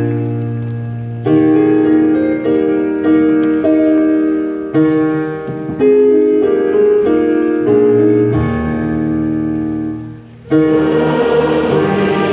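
Hymn played on a keyboard: sustained chords that change about every second. About ten and a half seconds in, the congregation joins in singing.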